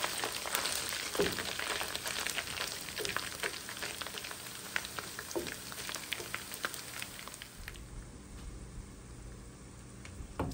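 Sliced onions, garlic and dried red chillies sizzling and crackling in hot oil in a wok, stirred with a wooden spatula. The sizzle drops away about three-quarters of the way through.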